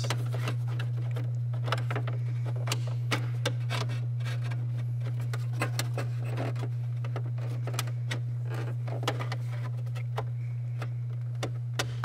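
Plastic steering-column cover being handled and pressed into place, giving scattered light clicks and taps over a steady low hum.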